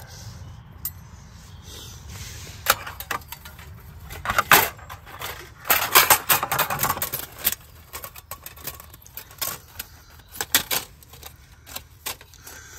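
Stainless steel plates of a Bushbox XL folding stove clinking and clattering as they are handled. The clicks come in irregular clusters, busiest about four and a half seconds in and again around six to seven seconds.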